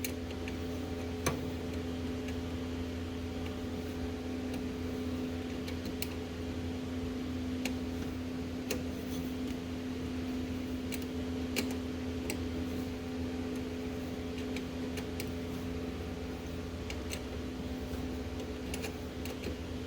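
Scattered light metallic clicks and taps of a wrench working the nuts on a starter's wire terminals, at irregular intervals over a steady background hum.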